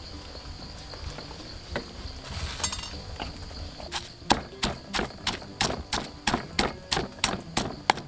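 Pestle pounding chili paste in a mortar: sharp, regular strikes at about three a second, starting about halfway through after a few quieter knocks and clinks. A steady high insect drone runs behind.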